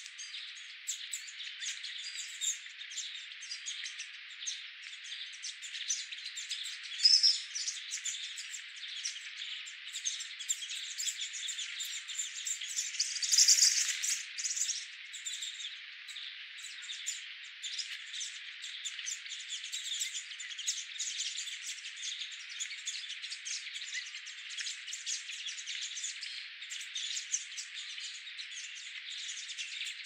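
A dense chorus of small birds chirping and calling over one another, unbroken, with a louder burst of calls about halfway through.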